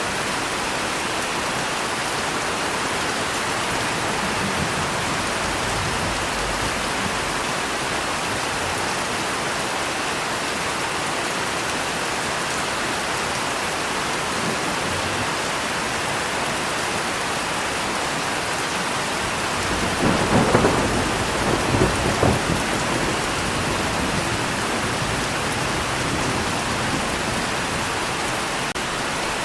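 Steady, heavy rain with thunder. A faint low rumble comes a few seconds in, and about twenty seconds in a closer thunderclap cracks and rumbles, with several sharp peaks over about two seconds.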